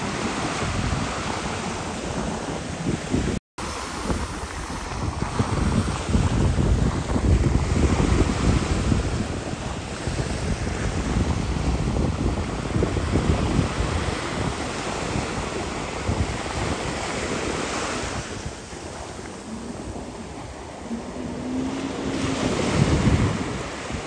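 Wind buffeting the microphone and water rushing past a jet ski under way, in heavy low gusts. The rush eases for a few seconds near the end, then swells again, and the sound cuts out for an instant about three and a half seconds in.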